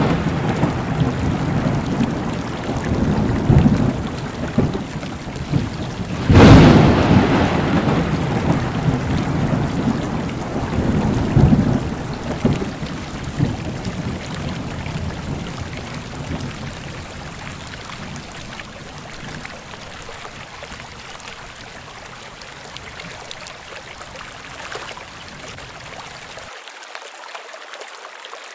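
Thunder rumbling and fading, with a second loud thunderclap about six seconds in that rolls off over several seconds, over a steady hiss of rain; the rumble dies away and only faint rain is left in the second half.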